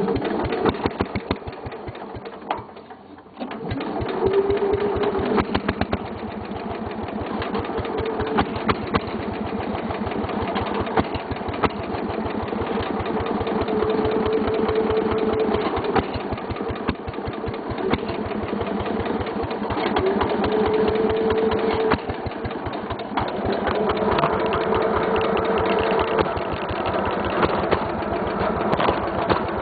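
A Simplicity garden tractor's single-cylinder 9 hp Briggs & Stratton engine is cranked on choke by its push-button starter and catches about three seconds in. It then runs steadily with an even, rapid pulse, and a higher steady tone comes and goes several times over it.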